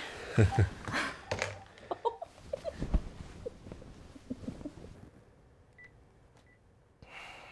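Bedcovers rustling with short muffled vocal sounds from under them, fading out after about five seconds. A short breath is heard near the end.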